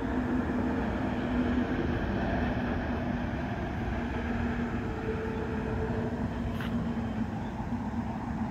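A motor running steadily, a constant hum over a low rumble.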